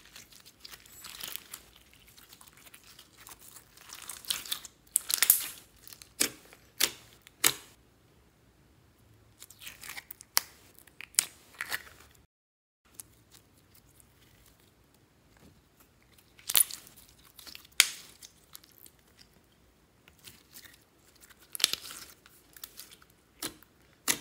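Clear glitter slime full of foam beads being stretched, pressed and squished by hand: irregular sticky crackles and sharp popping snaps, coming in bunches with quieter pauses between.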